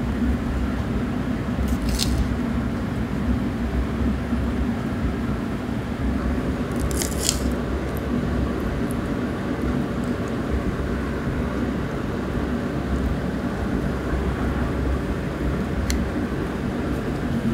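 Raw chicken pieces and leek being pushed by hand onto bamboo yakitori skewers, a soft squishing, with a few brief sharp clicks, over a steady low machine hum.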